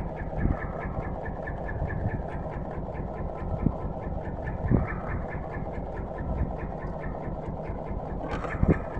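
Boat engine running steadily at low revs with an even beat of about six pulses a second. A few dull knocks are heard over it as the gill net is hauled aboard.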